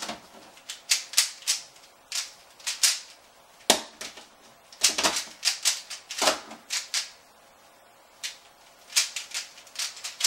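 Plastic layers of a new, unlubricated Moyu Aolong 3x3 speedcube clicking as they are turned fast, one-handed, in quick runs of turns with short pauses between.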